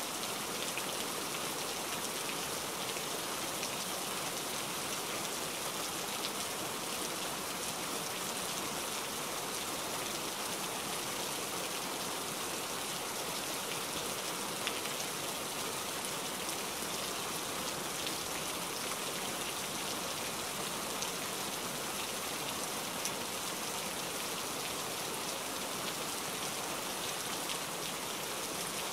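Steady rain falling on water, a constant hiss with faint pattering ticks.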